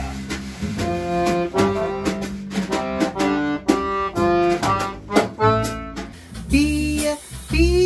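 Studio-recorded band music: a melody of pitched instrument notes over regular drum and percussion hits.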